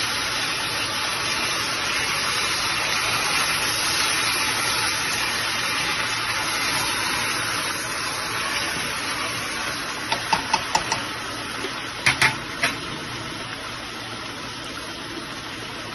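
Potato and tomato pieces sizzling and bubbling in oil in an open pressure-cooker pot, a steady hiss. A few light clicks of a metal spoon come about ten and twelve seconds in.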